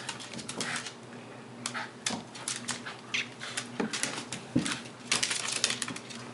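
A Scottish terrier and a cat scuffle on a hardwood floor, with claws clicking and skittering in quick, irregular bursts. A short animal vocal sound comes about four and a half seconds in.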